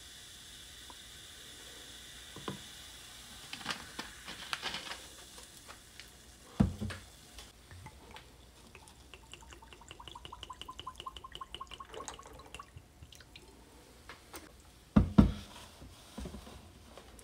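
Cola fizzing in a glass mug of ice just after being poured, a steady hiss that fades after a few seconds, with clicks from the plastic bottle being handled. A thud about six and a half seconds in, a quick run of ticks for a few seconds, and two loud thuds near the end as things are set down on the counter.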